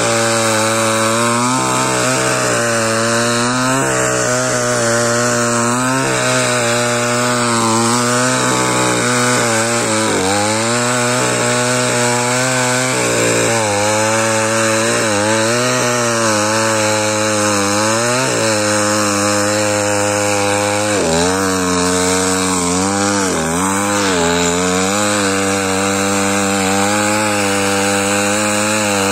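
Gasoline chainsaw running at high revs while cutting into a log, its engine pitch sagging and recovering again and again as the chain bites into the wood.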